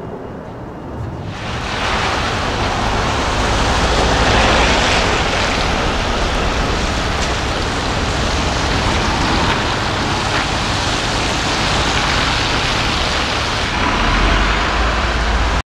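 A car at speed heard as a steady rushing noise rather than a clear engine note. It swells in about a second in and cuts off abruptly near the end.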